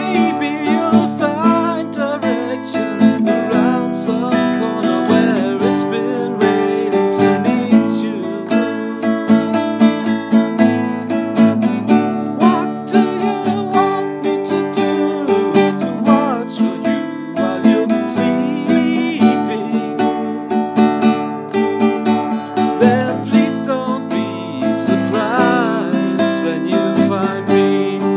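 Nylon-string classical guitar strummed in a steady rhythm, with a man singing over it.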